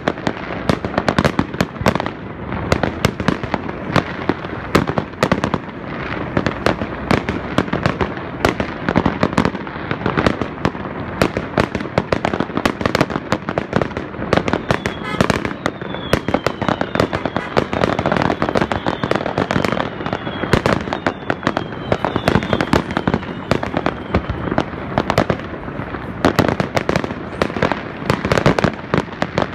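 Aerial fireworks going off in a continuous barrage: dense bangs and crackles with no let-up, and a run of short falling whistles about halfway through.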